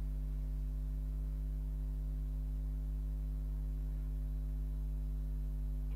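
Steady electrical mains hum, a low buzz with a ladder of evenly spaced higher overtones, unchanging.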